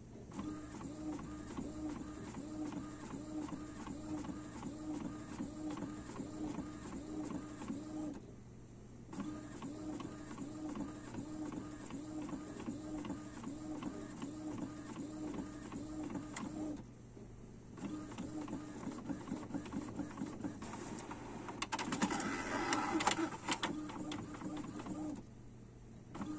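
Epson XP-255 inkjet printer printing a page: the print-head carriage shuttles back and forth in a steady rhythm of about one and a half passes a second, stopping for about a second three times, with a louder, rougher stretch about 22 seconds in.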